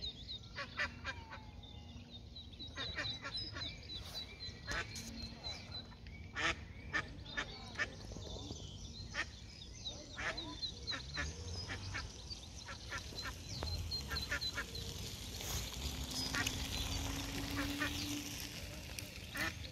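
Waterfowl calling: repeated short honking and quacking calls at irregular intervals, with a small bird twittering high in the background and a low rumble underneath.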